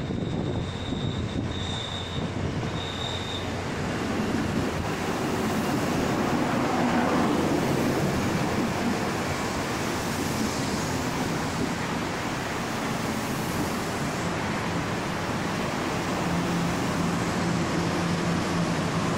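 Electric multiple-unit commuter train pulling into a station platform and slowing down, its wheels rumbling on the rails, louder from about five seconds in. There are three short high beeps near the start, and a steady low hum comes in near the end as the train slows almost to a stop.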